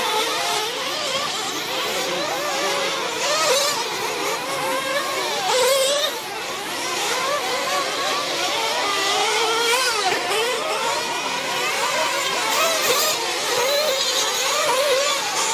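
Several RC truggies racing together, their small engines revving up and down in overlapping, wavering pitches as they accelerate and brake around the track.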